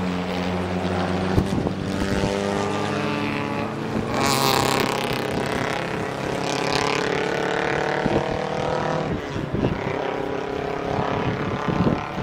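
Race car engines passing through a corner one after another, their overlapping engine notes rising in pitch, with a loud hissing rush about four seconds in.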